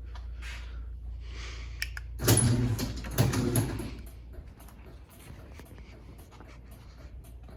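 Chain-drive garage door opener running the door during a safety sensor test, with a steady motor hum. About two seconds in comes a loud rattling clatter of the door panels and rail lasting under two seconds, as the door stops and reverses when the safety beam is broken, followed by lighter clicks.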